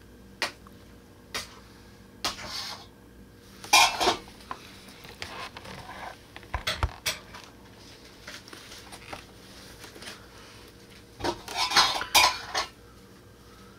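Intermittent clinking and clattering of hard objects being handled. Two sharp clicks come first, then short bursts of clatter about two and four seconds in, and a louder run of clatter a little before the end.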